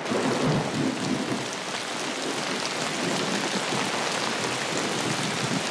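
Steady rain falling, an even, dense hiss.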